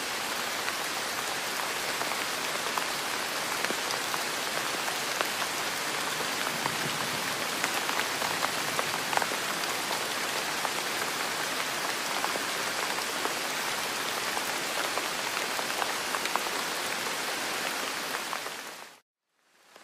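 Steady rain: an even hiss with many small scattered drop ticks. Near the end it fades out to a moment of silence and then starts to fade back in.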